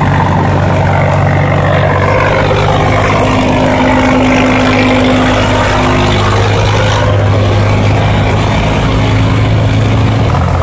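Engines of loaded cargo boats running steadily as they pass close by through a river sluice gate, a continuous low hum over churning water.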